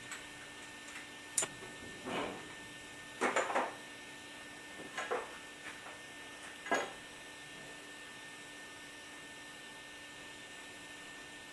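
A few short metallic knocks and clinks from hand tools and pipe fittings during plumbing work, spread over the first seven seconds. A steady electrical hum runs underneath and is all that remains after that.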